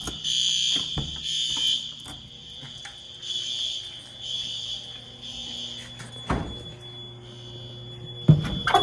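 Fire alarm horns of a Notifier NFS2-640 system sounding in repeated high-pitched pulses, then falling silent about six seconds in as the alarm is shut down. Two thumps follow near the end.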